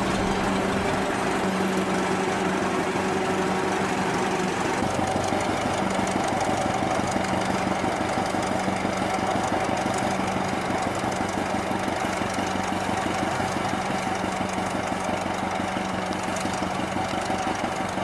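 Engine of a Pioneer 30 antique tractor running steadily under load while pulling a gang plow, with a rapid, even beat.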